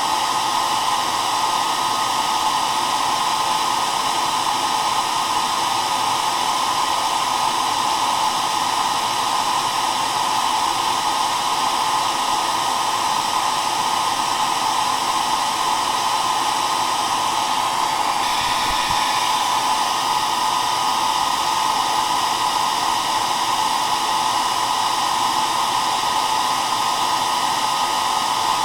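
Hair dryer running steadily: an even rush of blown air, strongest in the middle range, with faint steady motor tones under it.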